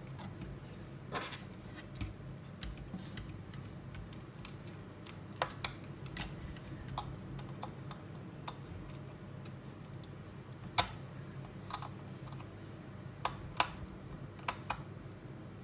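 Irregular plastic clicks and taps from hands handling a plastic remote-control toy car while fitting its battery, with the loudest snap about eleven seconds in.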